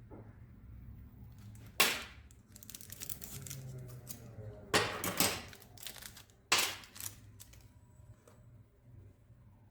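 Sharp metallic knocks and clicks of router parts and tools being handled during disassembly, a handful of separate strikes with the loudest about two, five and six and a half seconds in, some followed by a faint ring.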